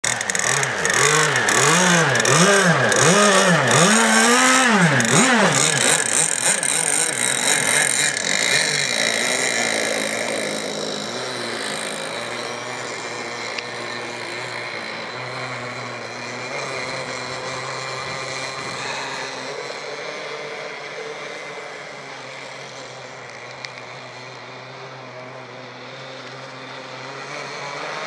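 Two-stroke petrol engine of a Blackjack 55 RC racing catamaran, revved up and down in quick repeated blips for the first few seconds, then running steadily at speed on the water, fading as the boat moves away and swelling again near the end as it comes back.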